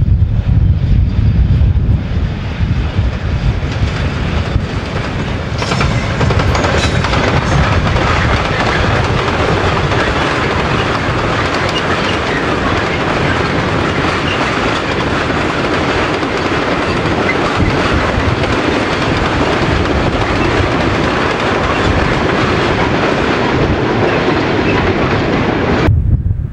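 A train running past on the line: a deep rumble for the first couple of seconds, then a steady, loud rush of wheel and rail noise for about twenty seconds, which cuts off suddenly near the end.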